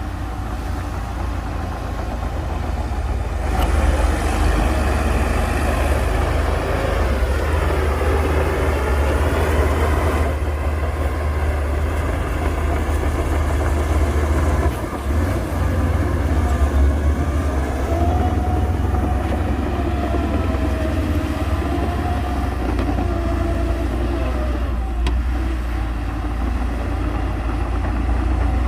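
Heavy diesel earthmoving machine engine running under load with a deep steady rumble. The sound shifts abruptly a few times. A wavering high whine rides over it for several seconds past the middle.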